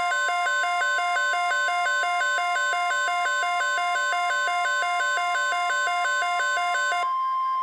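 Midland weather alert radio sounding its alarm for a severe thunderstorm watch: a loud, rapidly alternating two-tone electronic warble over the steady 1050 Hz NOAA Weather Radio alert tone. The warble stops about seven seconds in, and the 1050 Hz tone carries on alone, which signals that the broadcast watch message is about to follow.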